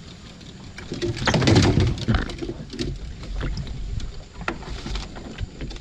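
Fishing rods and tackle knocking and rattling against a small boat's hull as they are grabbed and handled, in irregular clicks and knocks, with a louder clatter about a second in.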